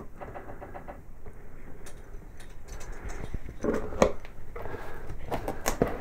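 Large cardboard shipping box being handled as its flaps are opened: cardboard rustling and scraping with scattered knocks, a few louder scrapes and knocks in the second half.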